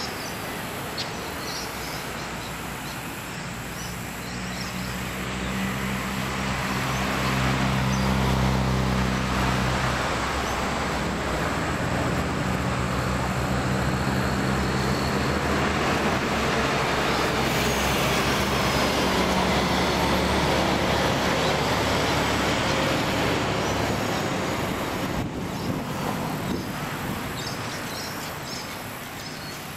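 Road traffic with a motor vehicle's engine running close by. The engine grows louder a few seconds in, holds for most of the time over a steady rush of traffic noise, then fades near the end.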